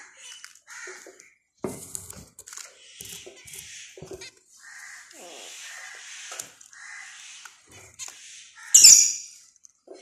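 Zebra finches and other cage birds calling with short, repeated chirps. A sudden loud burst of noise comes close by just before the end.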